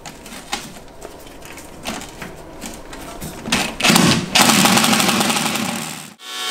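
Light clicks and knocks of tools and plastic wheel-arch liner parts being handled, then a cordless power driver runs for about two seconds, undoing a liner fastener, and stops abruptly shortly before the end.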